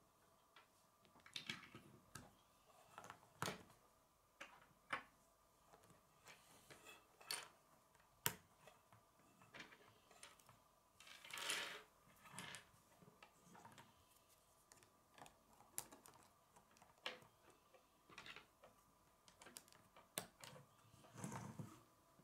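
Plastic K'nex rods and connectors clicking and snapping together as they are handled, with scattered light taps and a few brief scrapes. The sharpest click comes about eight seconds in.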